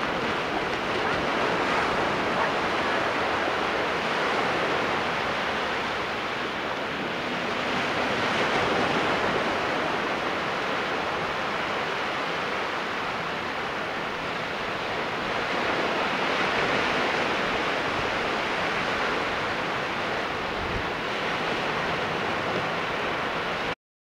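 Ocean surf washing in and breaking on the shore: a steady rushing that swells and eases every several seconds, cutting off abruptly near the end.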